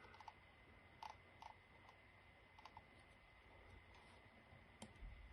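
Faint, scattered clicks from working a computer, a handful spread unevenly over a few seconds, against near-silent room tone.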